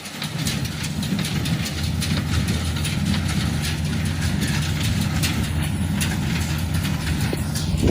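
A tractor engine runs steadily, pulling a New Holland 69 square baler whose mechanism clatters continuously with quick clicks and knocks.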